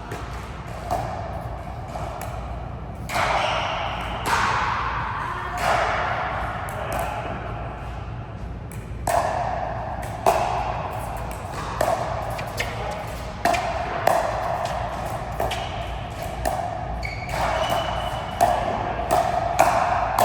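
A rally of sharp hits ringing in a large hall, irregularly spaced about one every second or so.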